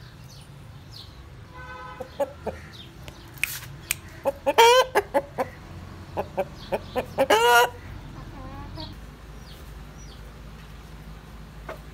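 Roosters clucking, with two louder wavering calls, about four and a half and seven seconds in, among scattered short clicks.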